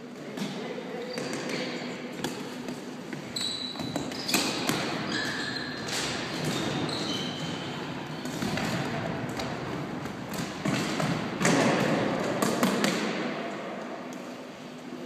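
Floorball play in a gym hall: plastic sticks clacking against the ball and each other, with running footsteps and short sneaker squeaks on the sports floor. The activity is busiest and loudest in the last few seconds, during a rush at the goal.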